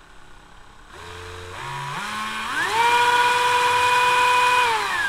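Ryobi ONE+ cordless rotary tool's motor whining as its speed is turned up from the minimum: the pitch climbs in a few steps, then rises smoothly to a high, steady whine. Near the end it begins to wind down.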